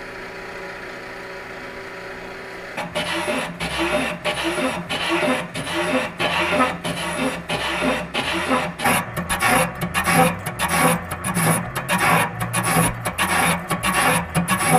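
Boring bar's electric drive motor running with a steady hum, then from about three seconds in a single-point fly cutter biting into the face of the tractor's rear case once each revolution: a regular scraping chatter of about two cuts a second, quickening to three or four a second in the second half as it face-mills the material.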